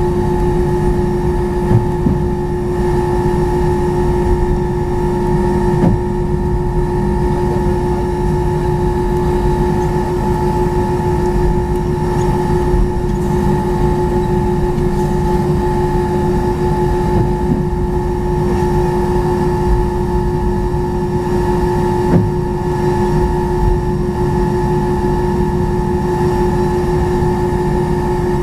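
Airbus A319-131 taxiing, heard from inside the cabin beside the wing: its IAE V2500 engines at idle give a steady hum with a constant whine over a low rumble. A few light thumps come through, about two seconds in, around six seconds and past twenty seconds.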